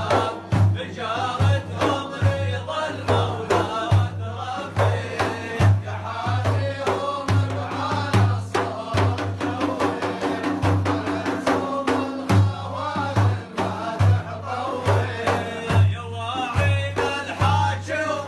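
Arabic religious praise song (madih): a male voice singing over a steady drum beat of about two strokes a second.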